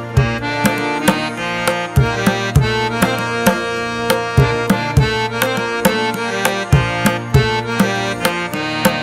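Background music with a steady hand-drum rhythm, its low strokes dropping in pitch, over sustained chords.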